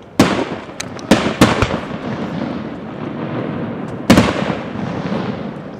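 Aerial firework shells bursting: a sharp bang just after the start, a quick run of smaller bangs a second or so later, then another loud bang about four seconds in, with the booms lingering as a rumble between them.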